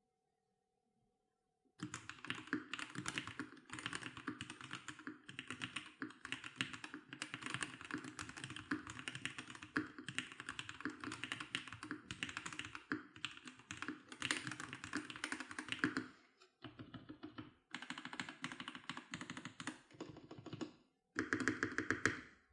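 Fast typing on a MelGeek Mojo68 mechanical keyboard with TTC Gold Pink linear switches: a dense patter of key clicks and key-bottoming taps. It starts about two seconds in and breaks off briefly three times.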